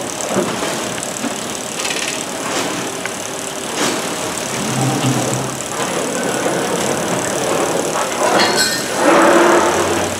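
Palletizer running as its layer carriage lifts a layer of water jugs: steady machine noise, with a sharp click about four seconds in and a louder rush of noise near the end.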